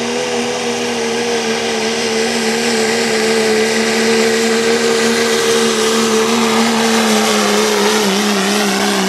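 2012 Dodge Ram's Cummins 6.7 L inline-six turbo-diesel running flat out under full load, pulling a weight-transfer sled. It is a loud, steady drone whose pitch drops a little near the end as the sled's weight drags the truck down.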